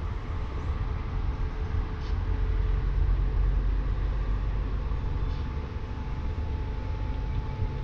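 SRT CSR diesel-electric freight locomotives running with a steady low rumble and a faint steady hum above it.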